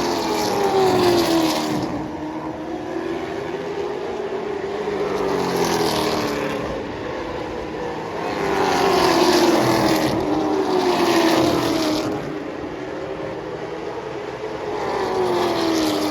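Late model stock cars' V8 engines running laps on a short oval. The sound swells each time the field passes, about every four to five seconds, and the engine pitch drops as the cars go by and into the turn.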